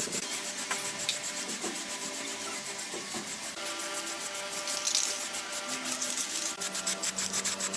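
Hand sanding: quick, even back-and-forth strokes of abrasive rubbing on a part of a motorcycle under restoration.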